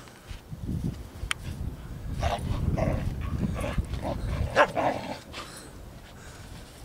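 Norwegian elkhounds at play, giving a run of short barks and yips, the loudest about four and a half seconds in.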